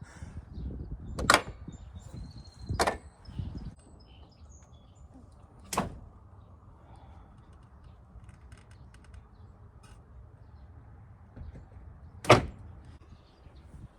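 Hand tools and engine parts knocking and clinking during mechanical repair work: four separate sharp strikes, the loudest about a second in and near the end. A low rustle of handling runs through the first few seconds.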